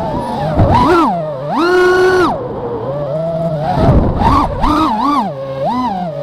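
Racing quadcopter's electric motors and propellers whining, the pitch swooping up and down with the throttle and held high for about half a second near the two-second mark. Twice there is a brief rumble of wind on the on-board microphone.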